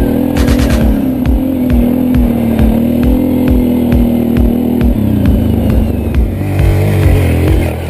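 Quad bike engine running under way across rough ground, its note steady, then dropping about five seconds in as it eases off, and wavering near the end.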